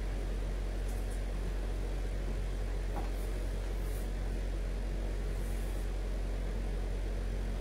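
Steady low hum and hiss of room background noise. A few faint, brief rustles of fabric and a hanger come through as a garment is handled.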